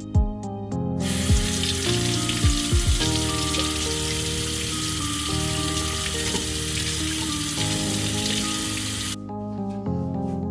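Water running from a tap into a sink, a steady hiss that starts abruptly about a second in and cuts off about a second before the end, under background music.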